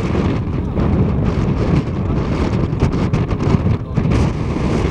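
Wind buffeting the microphone on a boat under way, over the steady low rumble of the boat and its engine.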